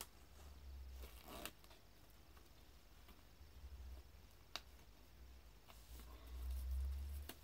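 Faint handling noises of hands picking at a sealed vinyl LP to open it: light scratching, a few small clicks and low bumps, the heaviest bump near the end.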